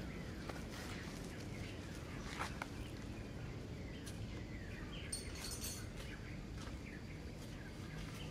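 Outdoor ambience: a steady low rumble with scattered short chirps and clicks, and a brief high buzzy trill about five seconds in.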